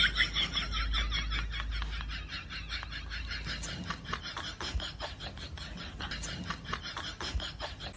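A person laughing in a rapid, breathy giggle that fades away gradually.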